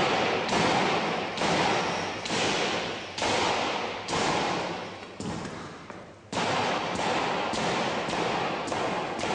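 Repeated heavy blows against a cracked glass pane held together by safety and security window film, about one a second, each sudden and fading away over most of a second; the film keeps the broken glass in the frame.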